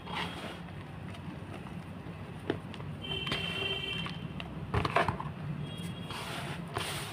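Blocks of gym chalk being crushed: a sharp crack about two and a half seconds in, a couple more near five seconds, and a longer gritty crumbling crunch near the end, over a steady low hum.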